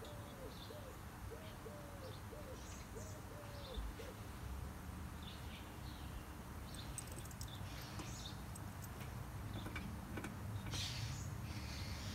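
Backyard birds calling: a low call that rises and falls in pitch, repeated several times over the first few seconds, with scattered high chirps, over a steady low outdoor rumble. Short clicks and rustling come near the end.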